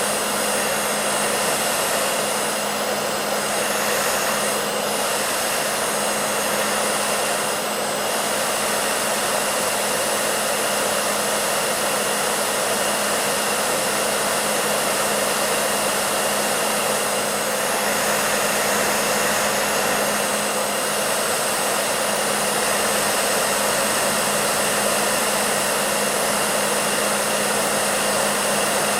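Hair dryer running steadily: an even rush of blowing air with a constant motor hum underneath and a faint high whine.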